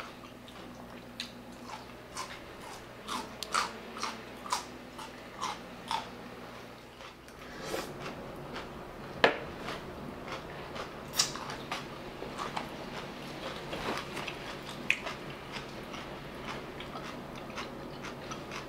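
Close-up eating: a person biting and chewing raw coleslaw and sweet pepper strips, with irregular crunches and mouth clicks.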